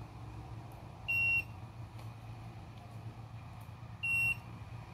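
Digital multimeter's buzzer giving two short, high beeps about three seconds apart, over a faint steady low hum.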